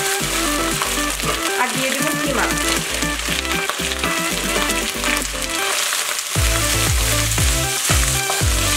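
Fried onions and pre-boiled beef mince sizzling in oil in a nonstick pan as a wooden spatula stirs them. Background music plays with it, and a pulsing bass beat comes in about two-thirds of the way through.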